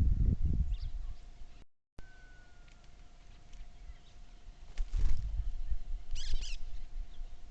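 Low rumbling noise that fades and cuts off, then a quieter stretch with a thud about five seconds in and a quick burst of high bird chirps soon after.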